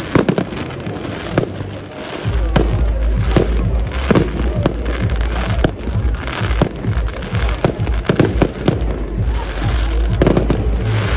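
Fireworks display: shells launching and bursting in an irregular run of sharp bangs, about one or two a second, with crackle between them. A heavy low rumble comes in about two seconds in.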